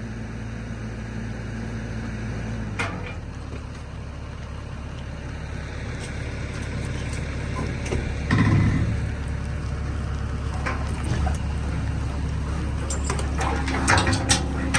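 A heavy machine's engine running steadily. Its pitch changes about three seconds in, then a heavy thump comes past the middle and sharp metal clanks and knocks sound near the end.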